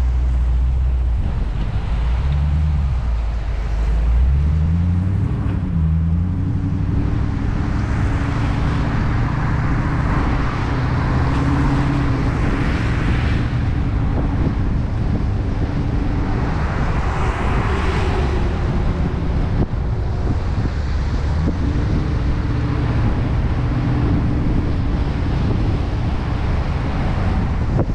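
Dodge Challenger R/T's 5.7-litre HEMI V8 running under way, its pitch rising and falling several times in the first few seconds and then mostly holding steady. Wind rushes over the microphone, with a hiss from the wet road that swells twice.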